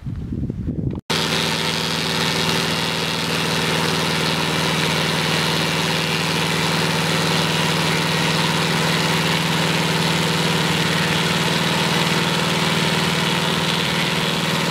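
Portable circular-saw sawmill running on its old Volkswagen engine: a steady, loud engine note with the hiss and whir of the spinning saw blades over it. It drops out for an instant about a second in, then holds steady.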